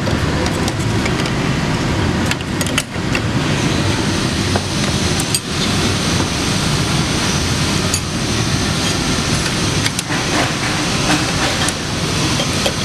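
Steady loud industrial shop noise, with a few scattered sharp metallic clicks from wrenches tightening the clamp bolts on a pre-insulated pipe shoe.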